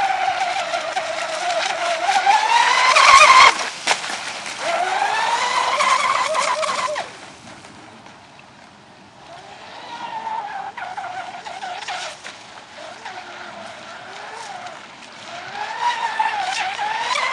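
Radio-controlled catamaran speedboat's motor running flat out, a high whine that rises in pitch twice and cuts off sharply each time, at about three and a half and seven seconds in. It then returns as a fainter, wavering whine and climbs in pitch again near the end.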